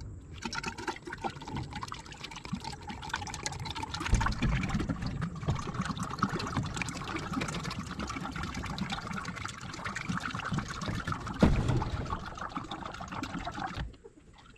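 Tractor hydraulic fluid pouring from an upended 5-gallon bucket into a boom lift's hydraulic reservoir through the open filler hole, refilling the tank. The pour runs steadily, with one knock late on, and stops just before the end.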